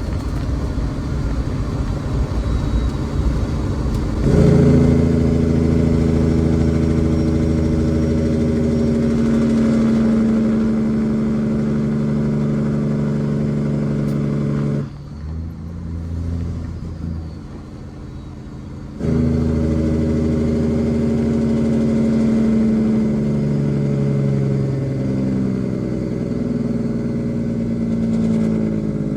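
A semi-truck's diesel engine running at a steady pace under way, a droning hum. It drops away for a few seconds about halfway through, then comes back abruptly.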